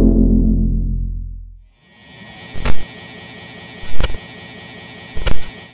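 Electronic logo-intro sound effects: a low bass boom fading away over the first second and a half, then a bright buzzing hiss with three heavy hits about 1.3 seconds apart, cutting off suddenly at the end.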